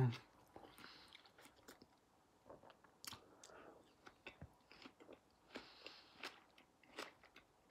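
Faint chewing: a scatter of small mouth clicks from someone eating close to the microphone.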